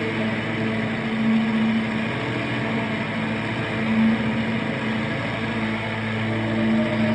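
Improvised drone noise music: a dense, distorted sustained drone holding a steady low pitch, swelling louder a little after a second in and again about four seconds in.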